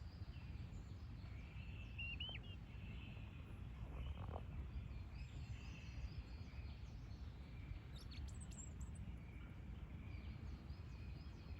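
Small birds calling over a steady low rumble of outdoor background noise, with a short chirp about two seconds in and a few quick chirps around eight seconds.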